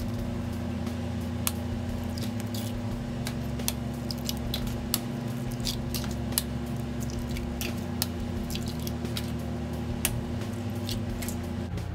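Eggs being cracked one after another into flour in a stainless steel bowl: a series of sharp clicks as the shells knock and break, with soft wet squishes as the eggs drop in, over a steady low hum.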